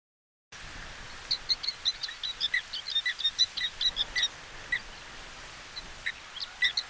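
Quail calling: a quick run of short, high chirps for about three seconds, then scattered single chirps, over a steady background hiss.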